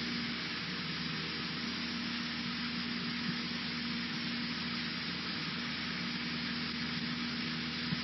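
Cessna 152's four-cylinder Lycoming engine and propeller running steadily: an even hum over a constant hiss.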